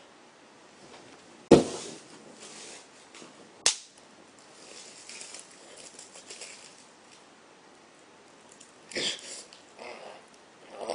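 A loud sharp knock, then a smaller click about two seconds later, followed by faint strained grunting and breathing as a person strains with effort, with a louder breathy grunt near the end.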